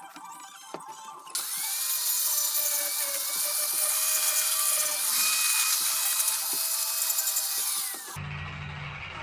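Angle grinder with a disc spinning up, grinding the wood of a walnut branch with a steady whine, then winding down about eight seconds in. Guitar music follows.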